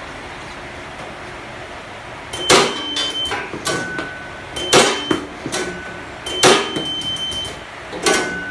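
Items dropped through a gravity-feed metal detector clatter down its stainless steel chute four times, about two seconds apart, starting a little over two seconds in. Short electronic beeps, some higher and some lower, come with the drops.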